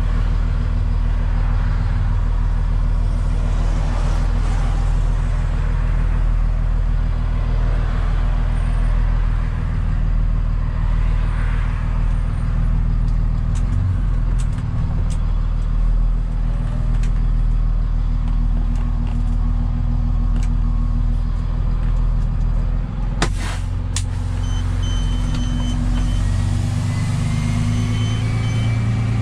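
Rollback tow truck's engine running steadily on the move, heard from inside the cab along with road noise. A single sharp knock late on, and a faint intermittent high beeping in the last few seconds.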